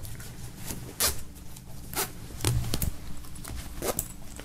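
Polyester tracksuit jacket being handled and folded: short rustles and swishes of the fabric, a handful spread through the few seconds, with one soft low bump about two and a half seconds in.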